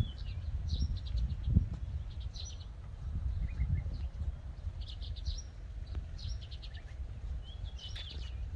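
Small birds chirping in short, quick high trills that come again every second or so, over a steady low rumble.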